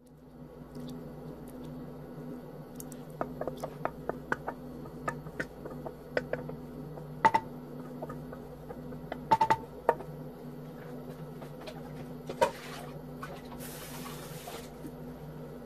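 Strawberry jam cooking in a glass pot on a gas burner, its bubbles popping and spattering in irregular sharp pops over a steady low hum, the loudest pops a little past the middle; a brief hiss near the end.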